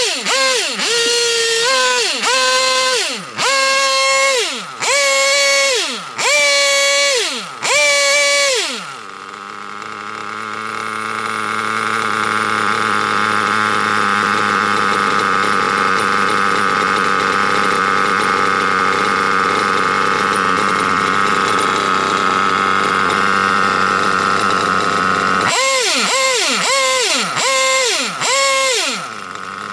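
GO GX5-R nitro engine in an RC buggy revving in a string of quick throttle blips, each rising and falling in pitch, then settling into a steady idle for about sixteen seconds. Near the end it is blipped again four or five times.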